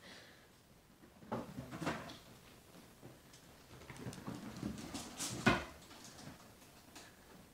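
Kittens scampering and tumbling on a hardwood floor and play mats: light patter with a few sudden knocks, the sharpest about five and a half seconds in.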